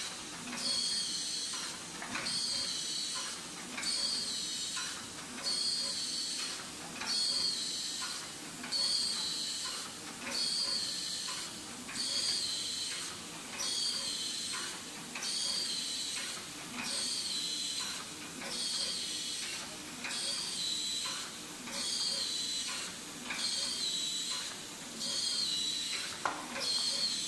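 Automatic cellophane overwrapping machine for lipstick boxes running its packing cycle: a high hissing whine swells and fades about once a second, with light mechanical clicks in each cycle. A sharper knock comes near the end.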